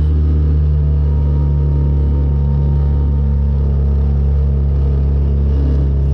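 Boat's outboard motor running steadily at speed, pushing the hull through choppy water.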